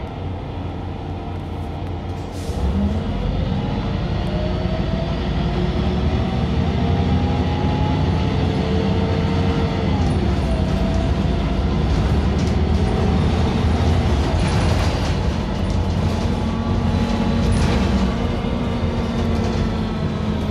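Irisbus Cityclass CNG city bus heard from inside the cabin while driving: its natural-gas engine and drivetrain run steadily and get louder about two and a half seconds in, with whines that slowly rise and fall in pitch as the speed changes.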